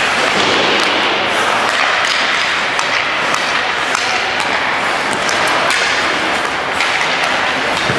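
Ice hockey play in a rink: a steady scrape and hiss of skates on the ice, with frequent sharp clacks and knocks of sticks and puck and the odd thud.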